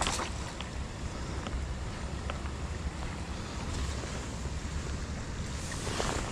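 Creek water rushing with wind buffeting the microphone: a steady noise over a low rumble, with a few faint ticks.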